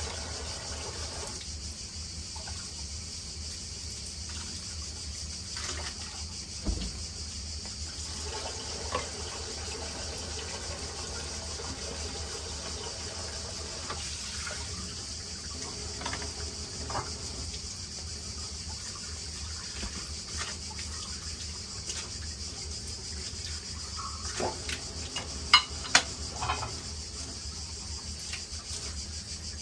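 Kitchen tap running steadily into a sink during dishwashing, with scattered clinks and knocks of dishes; a few sharper knocks come near the end.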